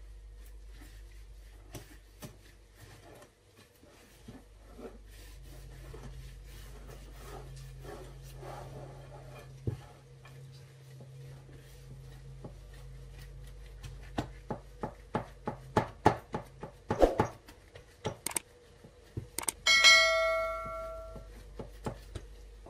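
Gloved hand kneading mashed potato and flour in a glass bowl, with soft squishing and scattered taps that turn into a quick run of knocks against the bowl about two-thirds of the way in. Near the end a bell-like chime rings for about a second and a half, the notification sound effect of a subscribe-button animation.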